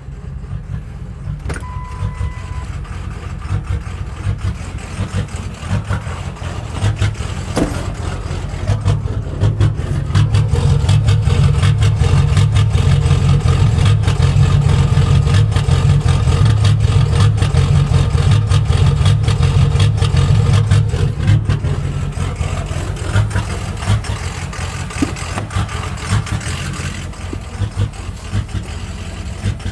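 Ford 6.0 L Power Stroke V8 turbo-diesel idling roughly, with an uneven, pulsing beat that grows louder for a stretch in the middle. The owner blames the rough idle on poor tunes and plugged injectors.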